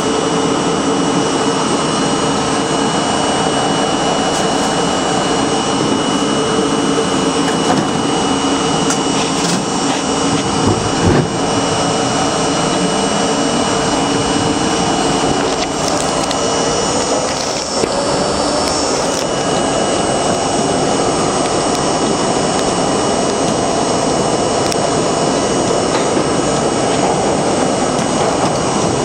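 New York City subway train heard from its front window as it pulls out of a station and runs into the tunnel: a steady loud running noise with a motor whine that rises in pitch as the train accelerates. A single knock comes about a third of the way in.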